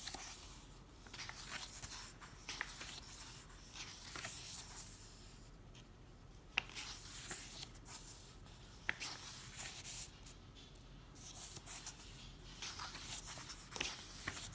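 Paper rustling as the pages of a hardcover book are handled and turned, coming and going in soft swishes. There are two brief sharp ticks in the middle.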